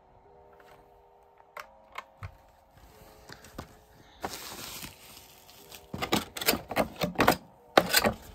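Packaging being handled during an unboxing: a few light clicks, a brief rustle, then a run of loud, sharp crinkles and crackles from clear plastic bags and the cardboard box insert.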